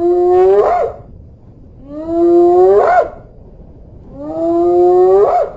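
Spotted hyena whooping: three calls about two seconds apart, each a long low note that rises in pitch and swoops up sharply at its end.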